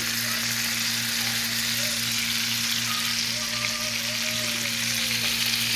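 Pan of butter and chicken drippings sizzling steadily as lemon juice goes in to deglaze it and loosen the browned bits from the bottom. A steady low hum runs underneath.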